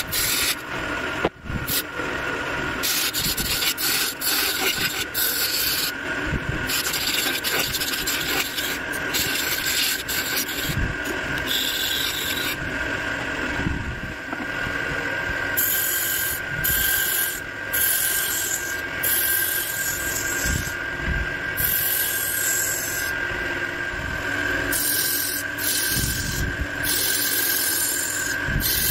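Wood lathe running with a steady high whine while a hand-held turning tool cuts the spinning wooden spindle. The scraping hiss of the cut comes and goes as the tool is pressed in and eased off.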